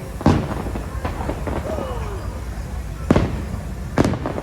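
Fireworks bursting: three sharp bangs, one just after the start, one about three seconds in and another a second later, with smaller pops in between.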